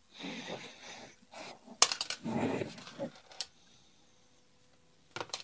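Small sander parts, a support pin and its foam sleeve, handled and set down on a workbench: rustling with a few sharp clicks, the loudest about two seconds in and a couple more near the end.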